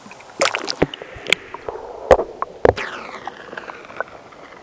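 Water splashing and gurgling as a caught bass is released by hand into the lake beside the canoe: several sharp splashes in the first three seconds, then fainter dripping and bubbling.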